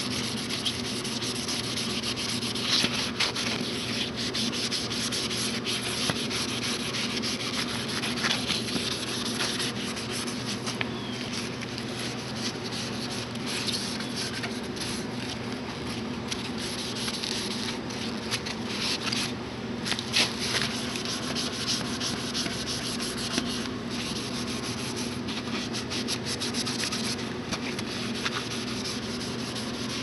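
Scouring sponge scrubbing a brass door knob and lock plate: continuous scratchy back-and-forth rubbing, pausing briefly about two-thirds of the way through.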